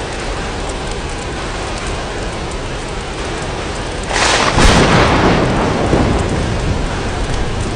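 Steady rain, with a clap of thunder about four seconds in that rumbles and fades away over a couple of seconds.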